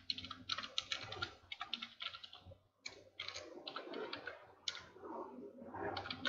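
Computer keyboard being typed on: quick runs of keystrokes with a short pause about two and a half seconds in.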